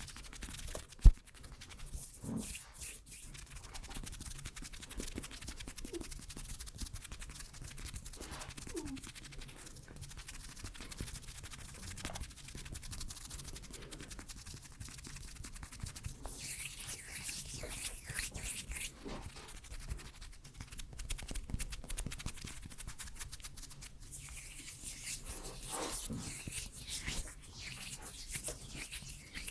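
Close-miked ASMR hand and mouth sounds: fine, crackly clicks and rubbing of skin, with a sharp click about a second in and a few short squeaky sounds.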